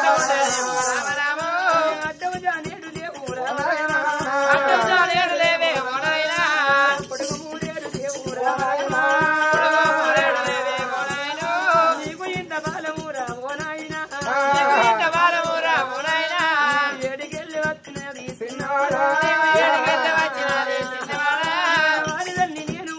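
Oggu Katha folk song: a man sings a melodic Telugu narrative line in long rising and falling phrases, over a steady fast beat on a barrel drum with jingling hand percussion.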